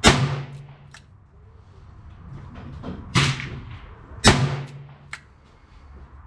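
Three shots from a Taurus Model 66 .22 LR rimfire revolver: one at the start, then two about a second apart, three and four seconds in. Each is a sharp crack with a short echo, with two fainter clicks between them.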